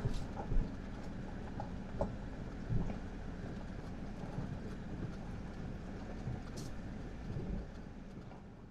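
Ram pickup driving over a rough dirt road, heard from inside the cab. The engine and tyres make a steady low rumble, broken by scattered knocks and rattles from bumps, and it all fades out near the end.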